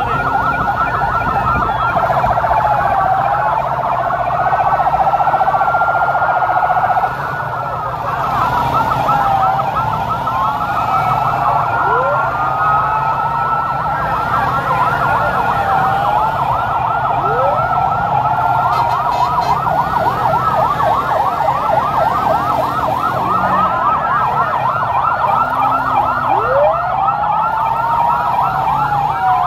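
Several vehicle sirens sounding at once in a convoy, their slow wails and rapid yelps overlapping, with a steady held tone for about five seconds near the start. Underneath is the steady rumble of engines.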